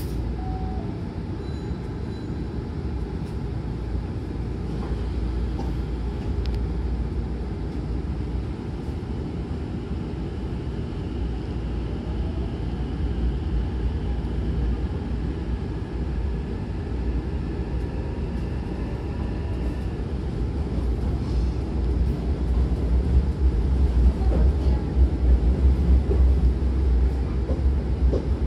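Hankyu 9000-series electric train pulling away and gathering speed, heard from inside the car: a steady low rumble of the running gear, with a faint rising whine from the traction motors partway through, growing louder in the last few seconds.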